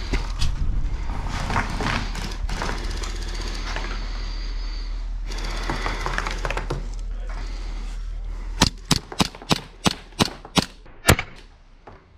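A gas blowback gel ball pistol, the We-Tech IREX Hi-Capa, fires about ten sharp shots in quick succession, roughly four a second, starting late and ending with the loudest shot. Before the shots there is only steady background noise.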